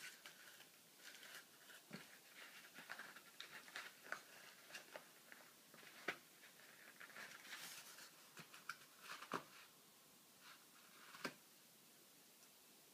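Toy poodle puppy chewing and pawing at an empty cardboard toilet roll tube on carpet: faint scattered crinkles, scrapes and small taps. The sounds thin out near the end.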